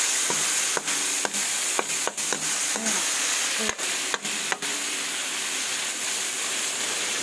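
Onion, garlic and tomato sizzling in hot oil in a metal wok, with a spatula stirring and clicking against the pan for the first four or five seconds. After that only the steady sizzle is left.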